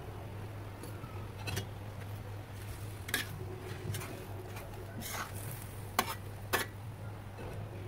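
Metal spatula scraping and clinking against a large stainless steel wok while stir-frying noodles and vegetables, about one sharp scrape a second, over a steady low hum.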